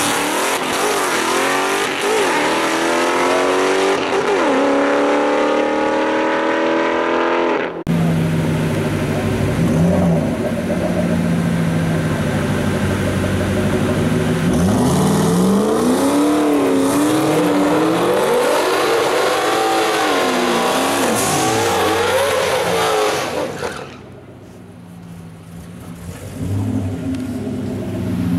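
Modified Ford Mustang drag cars revving hard on the strip. First one car's engine climbs in pitch again and again. After an abrupt change, another engine's revs rise and fall unevenly. About 24 s in the sound drops sharply, and a low engine idle returns near the end.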